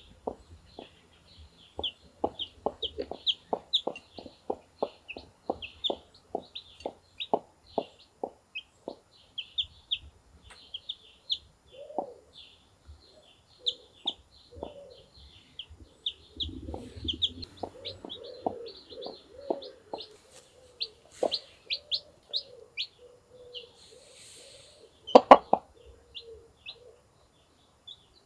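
Brahma mother hen clucking softly and rhythmically, about two clucks a second, while her day-old chicks peep constantly in high thin chirps. Near the end there is one loud sharp knock.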